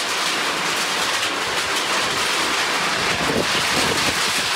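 Hailstorm: hail and heavy rain pelting down around and onto the gazebo roof overhead in a dense, steady rush, with wind.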